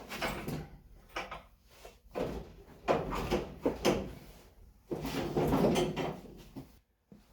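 Irregular clunks, scrapes and rattles of metal parts being handled and shifted while an engine is worked down into a car's engine bay.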